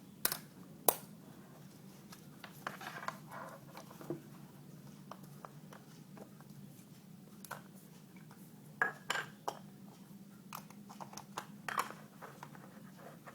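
Scattered sharp clicks and taps of a Canon 50D DSLR body being handled and reassembled, small plastic and metal parts knocking, over a steady low hum.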